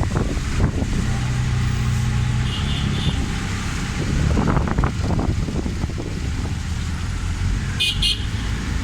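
Road traffic: a steady engine hum with passing vehicles, and short high horn-like beeps about two and a half seconds in and again near the end.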